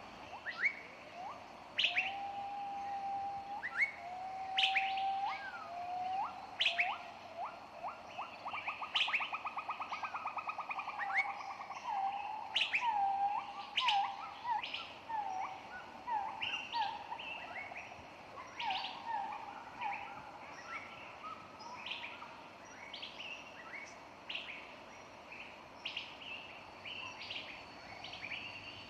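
Songbirds chirping and whistling: repeated short upswept chirps and held whistled notes, with a fast rattling trill about a third of the way through.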